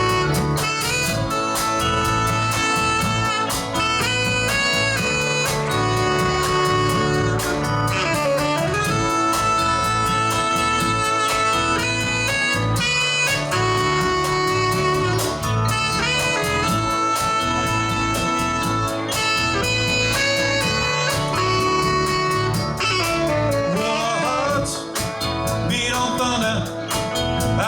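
Live rock band playing an instrumental intro: drums keep a steady beat under guitar and bass while a lead instrument plays long held melody notes.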